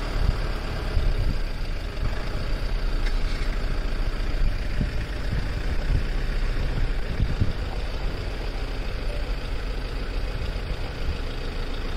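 Safari jeep's engine running steadily with a low rumble, with short knocks and bumps here and there.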